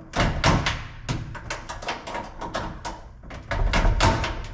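Hands working on a GE stackable dryer's sheet-metal front panel during reassembly: a quick, irregular run of clicks and knocks, with heavier thumps just after the start and again near the end.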